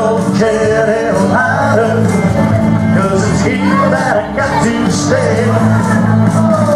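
Square-dance music playing loudly and steadily, with a caller singing over it in a singing call.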